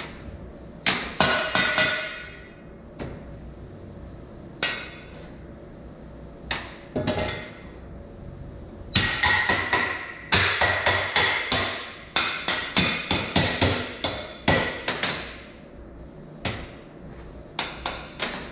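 Hammer blows on steel tubing: sharp, ringing metallic strikes in short bursts, sparse at first, then a quick run of about three or four strikes a second through the middle, with a few more near the end.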